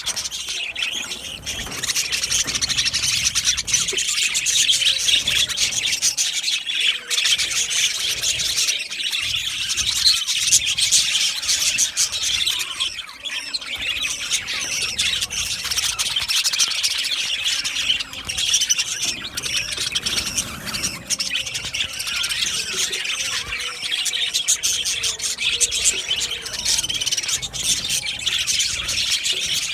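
A flock of budgerigars in an aviary chattering, with many overlapping warbling chirps and squawks going on without a break.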